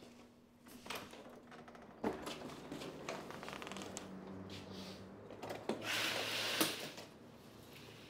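A door handle and latch click, then a room door is pulled open about two seconds in, with rustling, handling sounds and a steady low hum. A louder rush of noise with a couple of knocks comes about six seconds in.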